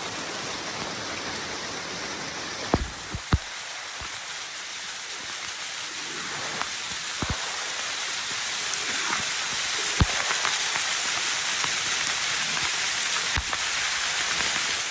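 Waterfall pouring down: a steady rush of splashing water that gets a little louder partway through, with a few sharp knocks scattered through it.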